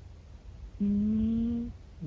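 Sleeping Minuet cat snoring: one steady, hum-like tone a little under a second long, rising slightly in pitch, about a second in.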